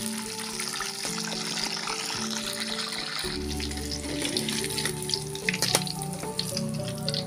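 Hot oil sizzling in a wok as chopped chillies and aromatics fry, with a few clinks of a metal spatula and strainer against the pan in the second half, under background music.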